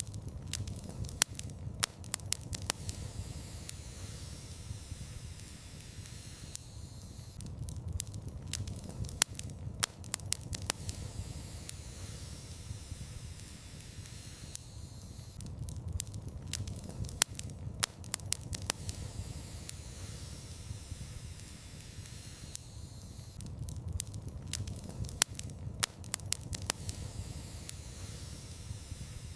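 Wood fire crackling in a fireplace: sharp pops and snaps in clusters every few seconds over a low rumble and hiss of flames.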